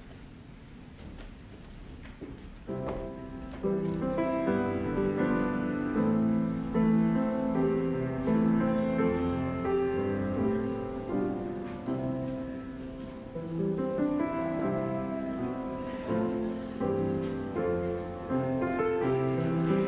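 Blüthner grand piano being played, coming in about three seconds in after a few seconds of quiet room sound, with several notes sounding together and changing through the rest.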